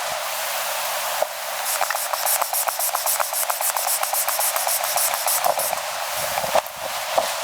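A steady hiss with many small clicks and rustles through it.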